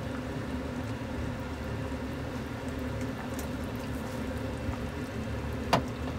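Pot of chicken soup simmering uncovered on the stove, a steady low bubbling of broth. A single sharp knock comes near the end.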